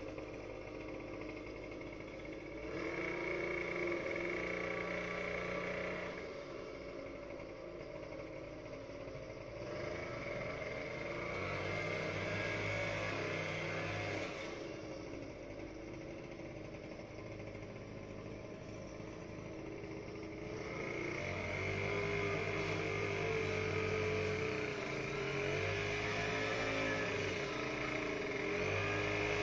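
Small gasoline engine of lawn equipment running steadily, rising in speed and loudness for a few seconds several times and then settling back.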